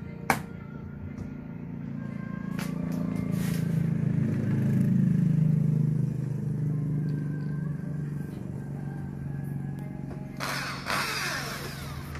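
A motor vehicle's engine passing by, swelling to its loudest about five seconds in and then fading. A sharp click comes near the start, and a short scraping rattle about ten seconds in.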